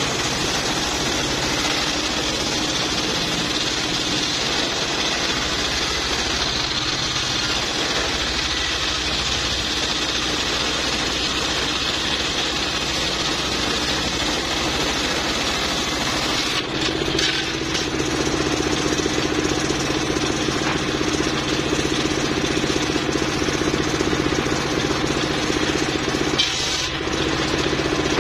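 Homemade circular-saw bench driven by a single-cylinder stationary diesel engine, its large blade ripping lengthwise through a teak log. About sixteen seconds in the cut ends and the blade spins free, leaving the engine's steady running note.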